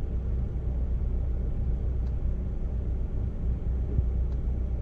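Fiat Mobi engine idling, a steady low rumble heard inside the cabin, with a single light click about four seconds in.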